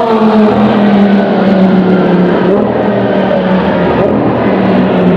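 MTE-tuned Lamborghini Gallardo's V10 engine running hard as the car passes at speed. Its pitch drops sharply right at the start as it goes by, then it holds a steady loud note as the car drives away down the track.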